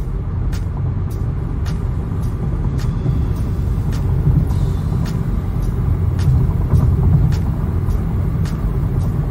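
Steady low rumble of an Infiniti car heard from inside the cabin while it runs on the road, with a light regular ticking a little under twice a second.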